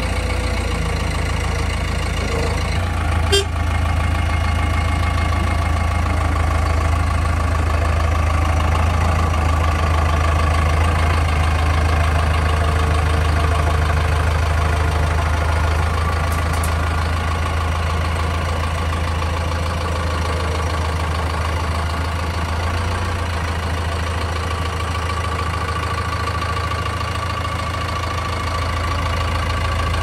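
JCB 3DX backhoe loader's diesel engine running steadily with a low hum, its pitch unchanging. A single short sharp click sounds about three seconds in.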